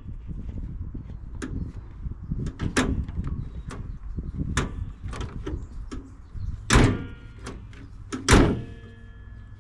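Small knocks and clicks on the 2007 Toyota Sequoia's front end, then two loud metal clunks about a second and a half apart near the end, each leaving a brief metallic ring: the hood being let down and shut to check the fit of the new grille.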